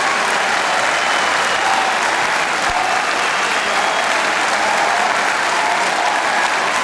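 Large audience applauding steadily, with scattered cheers riding above the clapping.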